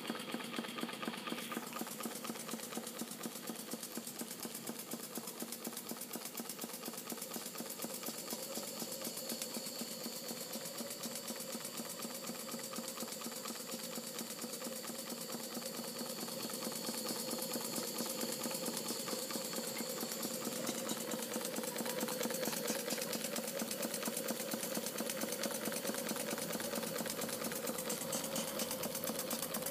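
Model entablature steam engine, steam-fed from a Stuart 3500 boiler, running steadily with a rapid, even clicking and chuffing beat. It gets slightly louder about halfway through.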